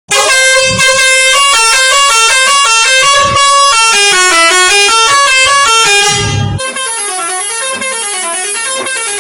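A bus's musical 'telolet' horn, a multi-tone horn playing a fast tune of short stepped notes. About six and a half seconds in, it turns softer and the notes waver up and down.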